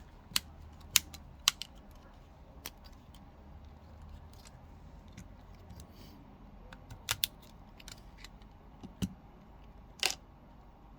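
Scattered sharp clicks and taps of tools and plastic parts as a smartphone is taken apart by hand, about a dozen at uneven intervals, with a pair close together about seven seconds in.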